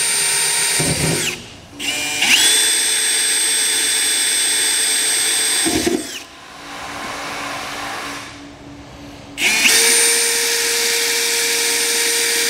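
Cordless drill with a 1/8-inch bit boring pilot holes through a pickup's steel bed floor. The motor runs with a steady high whine in three bursts. The first winds down with a falling pitch about a second in, the second runs from about two to six seconds, and the third starts near ten seconds and winds down near the end.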